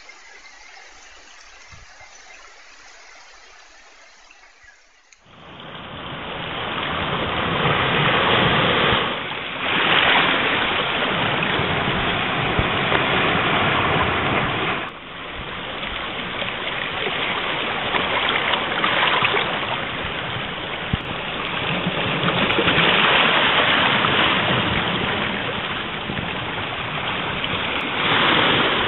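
Faint low ambience, then about five seconds in a sudden switch to loud, steady rushing water that swells and eases.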